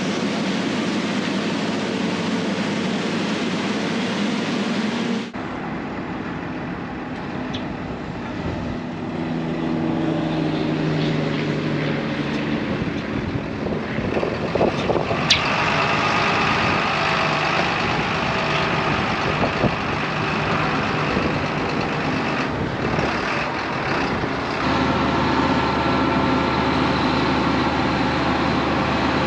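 Heavy diesel farm machinery running steadily while chopped corn silage is blown from a forage harvester into a truck box, with a continuous rush of material and engine drone. About 25 s in the sound changes abruptly to a steadier, stronger engine drone of tractors running on a silage pile.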